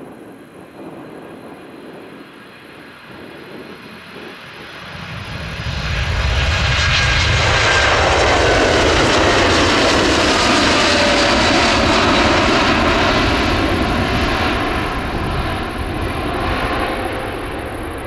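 Boeing 787 Dreamliner's jet engines at take-off power as the airliner climbs out and passes. The roar builds loud about five seconds in, carries a whine that falls in pitch as it goes by, then slowly fades.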